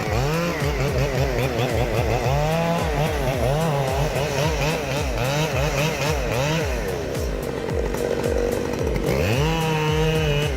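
Chainsaw engine running and cutting, its pitch repeatedly rising and falling as the throttle is worked. Near the end it revs up to a steady high pitch, then drops. Music plays underneath.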